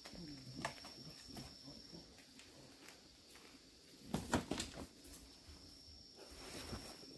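Kittens scuffling and tumbling on a concrete floor, with a quick cluster of soft knocks and thumps about four seconds in. A faint steady high-pitched whine runs behind it.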